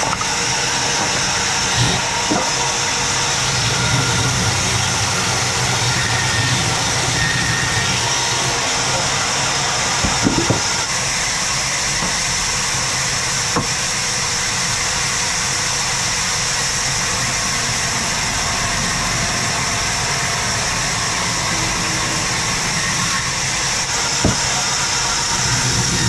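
Large vertical band saw running steadily while its blade cuts through a log, a constant high hiss over a low motor hum, with a few brief knocks.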